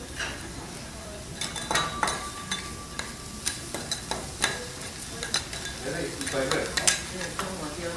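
Lobster tail and garlic chips sizzling on a steel teppanyaki griddle, with the chef's metal spatulas scraping and clicking against the plate many times, a few strikes ringing briefly.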